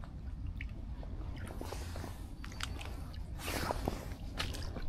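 Quiet rustling and crunching with a few scattered clicks as the fishing line and gear are handled, over a steady low rumble.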